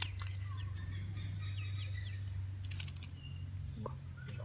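Insects chirring: a steady high whine and an evenly pulsing trill, over a low steady hum, with a few faint short chirps and a brief patter of clicks near the middle.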